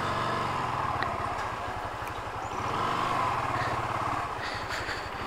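Honda CB Twister 250's single-cylinder engine running steadily at low revs, with a rapid even exhaust beat.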